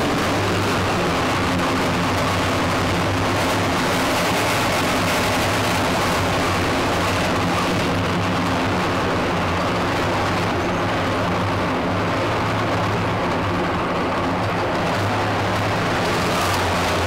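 OT-90 armoured personnel carrier's diesel engine running steadily, a deep, even drone heard from inside the troop compartment.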